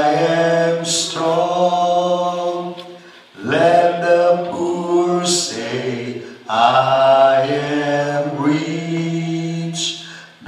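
Voices singing a slow worship song in long held notes, in three phrases that break off about three seconds and six and a half seconds in.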